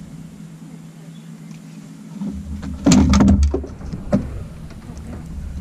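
Clatter and sharp knocks of a landing net being grabbed and swung out over the side of a fishing boat to land a hooked fish, loudest about three seconds in, with one more knock about a second later, over a steady low hum.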